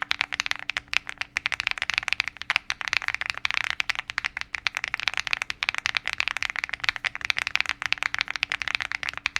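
Mechanical keyboard with Nana tactile switches being typed on rapidly: a dense, continuous stream of key strokes with no real pauses.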